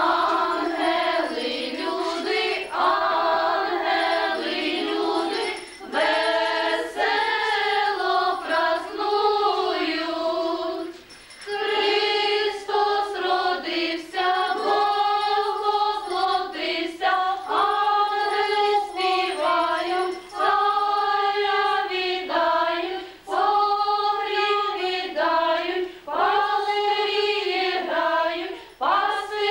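A group of girls singing a Christmas carol together in Ukrainian, phrase after phrase, with a short pause for breath about a third of the way through.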